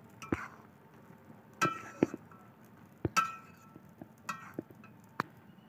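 A metal spatula clinks against the side of a metal karahi while stirring: about eight sharp, irregularly spaced clinks, several of them with a short metallic ring.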